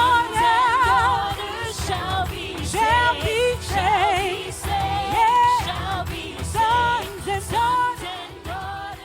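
Christian worship song: a solo voice sings wordless, drawn-out runs with strong vibrato over a sustained low accompaniment, growing quieter near the end.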